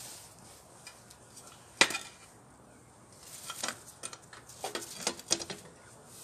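Handling of hard objects: one sharp click about two seconds in, then scattered clusters of small clicks and knocks.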